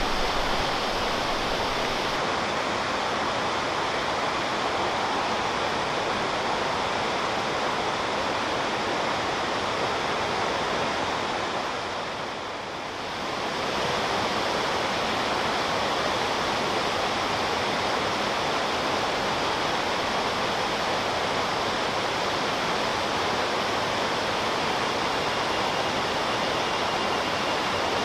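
Waterfall pouring in a steady, even rush of water, briefly dipping quieter about halfway through.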